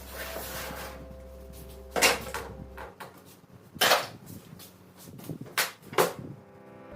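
A few sharp knocks and clatters about two seconds apart, from hard parts being handled and set down during a repair job, with faint steady tones underneath.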